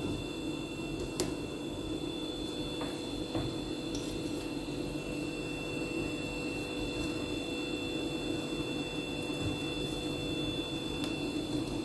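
Steady indoor background hum and hiss with a few constant high whining tones, and a couple of faint clicks, about a second in and about three seconds in.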